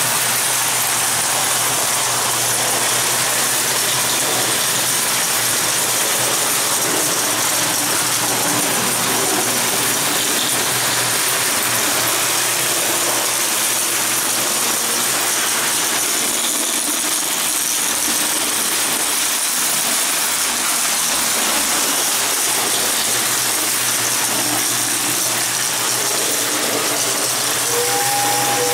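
Prewar Lionel tinplate trains, a 262 steam locomotive and a 254 electric-outline passenger set, running on three-rail track: a steady mechanical rattle of wheels on the rails and of the locomotives' motors and gears. A short steady tone sounds near the end.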